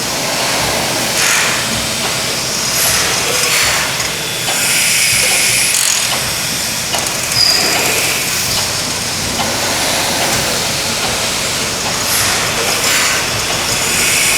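1917 Snow twin-tandem, double-acting natural gas engine running: a steady mechanical noise with hissing swells that come back every few seconds.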